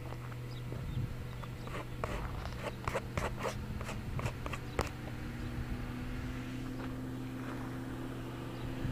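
Footsteps on dry, stony dirt, a quick run of steps in the first half, over a steady low hum.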